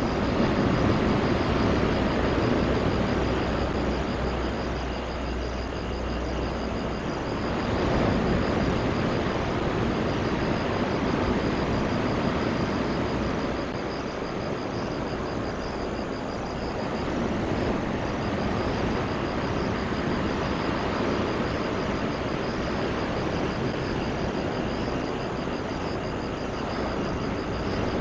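Rail engineering vehicle running on the track, a continuous rumble with a low hum that fades about seven seconds in.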